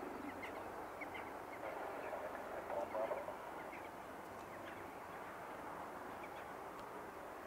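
Birds calling faintly over steady background noise, with a short run of louder calls about three seconds in.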